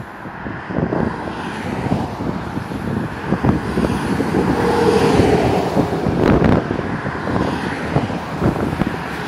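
Motorway traffic passing at speed, its tyre and engine noise swelling as a heavy lorry goes by close about five seconds in, then easing off as cars follow. Wind buffets the microphone throughout.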